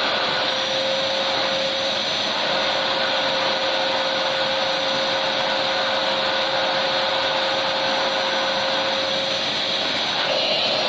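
Electric vacuum cleaner running steadily: a constant motor hum with a whooshing rush of air, used as white noise for sleep.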